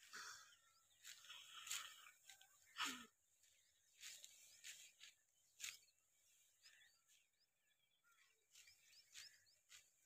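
Quiet, scattered crisp rustles of dry, ripe wheat stalks being cut and gathered by hand, a handful at a time, with faint bird chirps behind.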